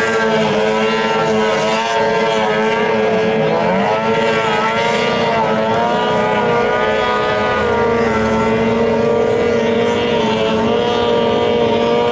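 Outboard engines of several racing boats running at high revs, a loud steady engine drone whose pitch wavers up and down as the boats race past.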